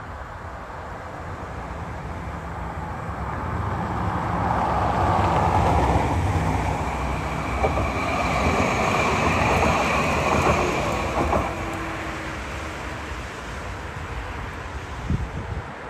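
A tram passing on the track: wheel rumble on the rails builds to a peak about halfway, with a thin high tone while it is closest and a few clicks from the wheels, then fades.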